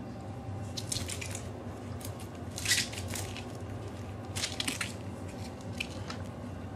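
Baby Holland Lop rabbits moving about a playpen: four short bursts of rustling and scratching, the loudest about three seconds in.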